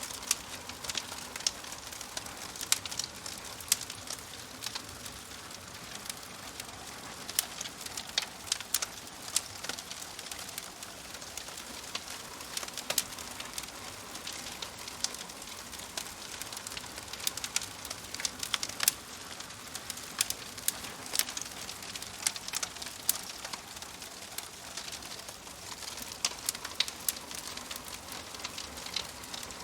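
Wood fire crackling in a fireplace: sharp, irregular pops and snaps, several a second, over a steady hiss.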